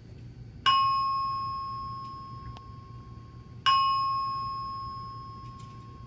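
Simplex 4100U voice fire alarm system sounding a bell-like chime twice through a wall-mounted fire alarm speaker, two strikes about three seconds apart, each ringing down slowly. It is the attention chime ahead of a voice announcement.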